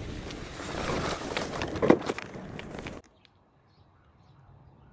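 A hand-truck snow pusher shoving snow, its blade scraping over the pavement, with one sharp loud scrape about two seconds in. It cuts off abruptly about three seconds in, leaving near quiet with a faint low hum.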